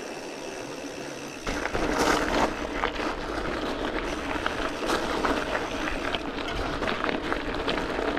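Gravel bike rolling on tarmac, then about a second and a half in its tyres run onto a gravel track: a louder, steady crunch and rattle of gravel under the tyres, with many scattered clicks of stones and a low rumble.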